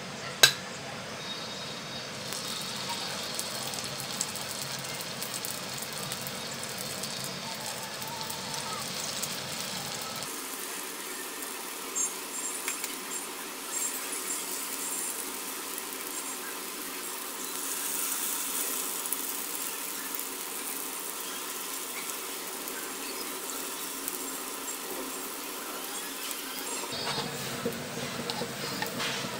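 Spinach and lentil pakora batter frying in hot oil in a nonstick pan: a steady sizzle with a few light knocks of the spatula. There is one sharp click just after the start, and the sound changes abruptly about ten seconds in and again near the end.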